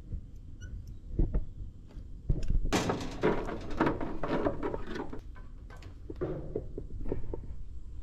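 Workshop handling noise: a couple of dull knocks, then about two seconds of dense clattering and rattling as parts are handled, tapering off into a few lighter knocks.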